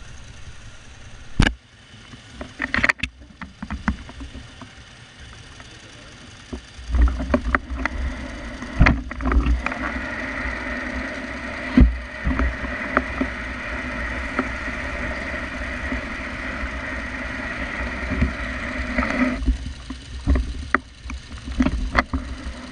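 Yamaha R1's inline-four engine idling steadily for about ten seconds, among sharp knocks and clicks of handling at the start and near the end.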